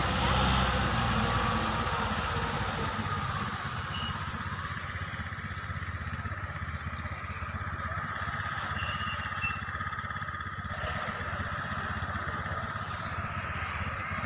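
Modified paddy-field tractor's engine running steadily as it works the soil into raised beds, a little quieter after the first few seconds.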